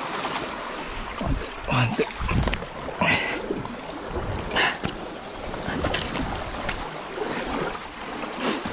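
Sea water washing and sloshing with wind on the microphone, broken by a few sharp knocks and clatters.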